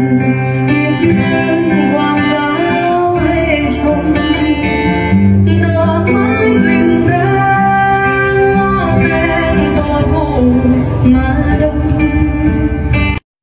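A song with singing over guitar, played back through a freshly repaired Sansui 500A tube receiver as a sound test. It cuts off suddenly near the end.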